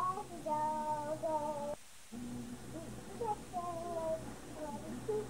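A young child singing a tune in held notes, one voice with no accompaniment. The sound cuts out briefly about two seconds in.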